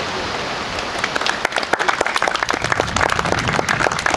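Audience clapping, starting about a second in and continuing steadily, after a moment of even background hiss.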